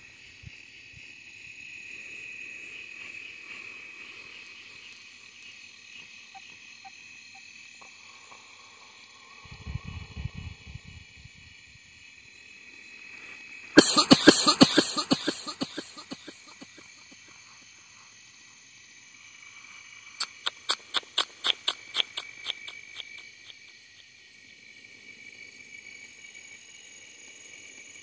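Steady night-time insect chorus, a high continuous chirring. Partway through come a short burst of loud clicks and rustles close by, and later a quick run of evenly spaced sharp clicks.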